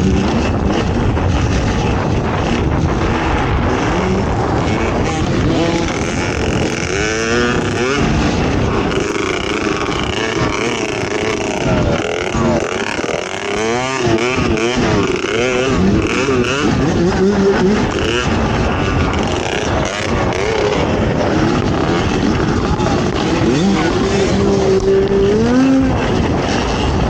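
Off-road racing ATV engine running hard, its pitch rising and falling quickly and repeatedly as the throttle is worked.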